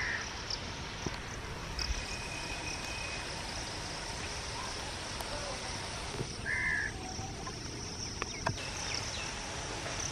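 Rural outdoor ambience: a steady high insect chorus, with a bird calling briefly twice.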